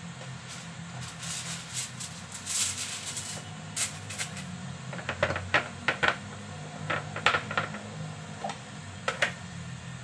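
Aluminium foil crinkling and rustling as a sheet is spread and smoothed over a wooden cutting board, followed by several sharp clicks as the snap-lock lid of a plastic food container is unclipped.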